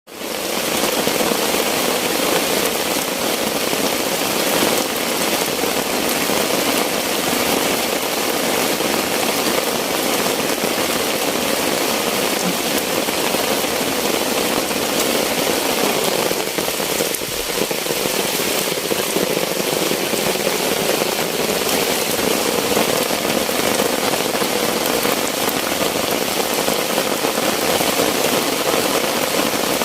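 Heavy rain falling steadily: a dense, even hiss of raindrops.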